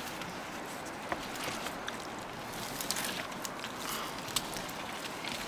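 Light wooden clicks and knocks as a cut branch is worked against a small upright stake in wet mud, over a steady outdoor hiss.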